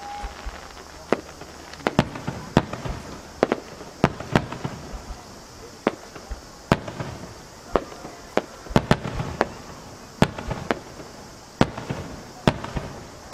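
Aerial firework shells of a starmine display bursting one after another: sharp bangs at uneven intervals, a bit more than one a second, over a continuous crackling hiss.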